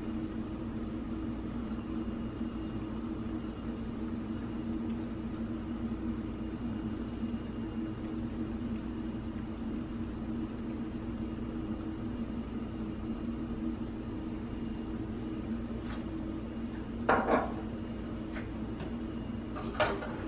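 A steady low hum from a kitchen appliance or fan runs throughout. Two brief knocks come near the end.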